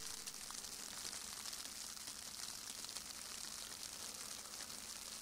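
Faint, steady hiss of heavy, wet snow falling.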